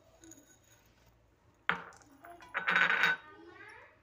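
Stainless steel bowl clinking against metal: a sharp clink a little before two seconds in, then a louder rattling clatter about a second later that rings briefly as it fades.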